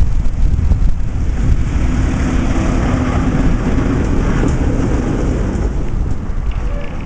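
A tram passing close by, its wheels rumbling on the rails, with a steady hum that is strongest as it draws alongside, under heavy low wind buffeting on the microphone.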